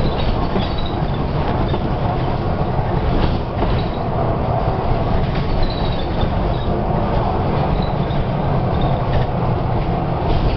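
Inside a moving Volvo B9TL Gemini double-decker bus: its straight-six diesel engine running under way with steady road noise, and scattered clicks, rattles and a few faint squeaks from the bus's interior.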